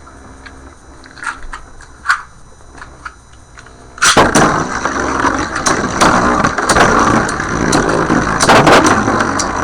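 A few light plastic clicks, then about four seconds in a sudden loud start of Beyblade spinning tops, Lightning L-Drago and Burn Phoenix, whirring and rattling in a plastic stadium, with many sharp clacks as they collide.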